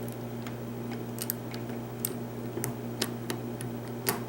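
Scattered light clicks from a lock pick working the pin tumblers of a lock held under tension, as pins are lifted and set one at a time, over a steady low hum.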